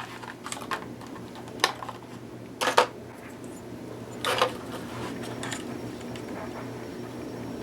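A new SSD being handled and taken out of its packaging: a handful of sharp clicks and taps of small hard parts, the loudest about three and four and a half seconds in, over a faint steady hum.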